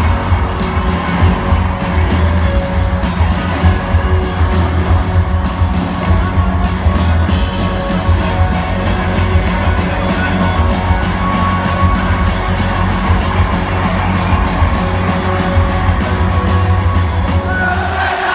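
Rock band playing live through a hall PA, with electric guitars, bass and drums and voices singing and shouting over them. The bass and drums drop out near the end.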